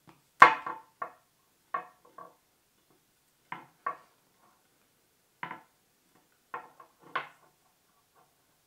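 An axe knocking against a wooden tabletop. A sharp clunk about half a second in as it is set down, then a string of lighter, irregular knocks and taps as it is shifted and handled on the table.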